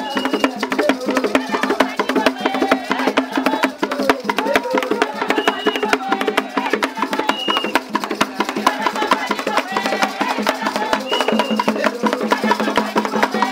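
Traditional Vili Tchikoumbi dance music: fast, dense percussion with voices singing over it.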